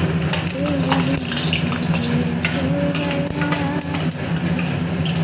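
Fuchka (puri) dough discs sizzling as they fry in hot oil in an iron kadai, a steel ladle stirring them and clicking against the pan, over the steady hum of a kitchen chimney exhaust fan.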